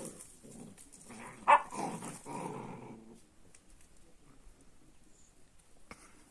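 Kangal puppies play-fighting: low growls with one sharp yap about a second and a half in, dying down after about three seconds.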